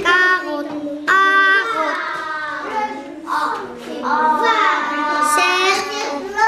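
Young children's voices in drawn-out, sing-song tones, with held notes that rise and fall.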